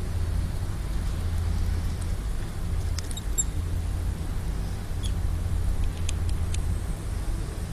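A mouse squeaking in short high-pitched chirps while a cat paws at it: a couple about three seconds in and a quick cluster later on. A steady low rumble runs underneath.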